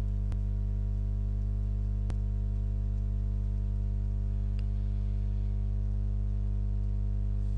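A steady low hum with several evenly spaced overtones, unchanging throughout, with two faint clicks, about a third of a second and two seconds in.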